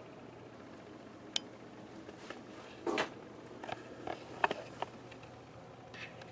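Hands handling PC case parts and cables, making scattered light clicks and taps, with a short rustle about three seconds in. A faint steady hum runs underneath.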